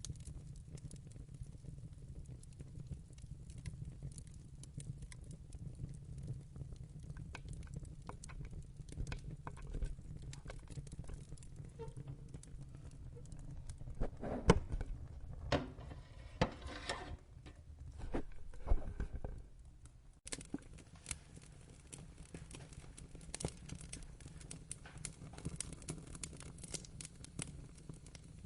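Wood fire in a fireplace crackling, with scattered sharp pops over a steady low rumble. About halfway through comes a louder run of pops and crackles lasting several seconds.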